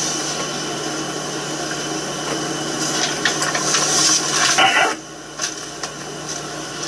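Rustling and rubbing of paper sheets being handled, over a steady hiss and low hum. The rustling gets louder and scratchier about three seconds in and stops suddenly about five seconds in, leaving a quieter hiss with a few light clicks.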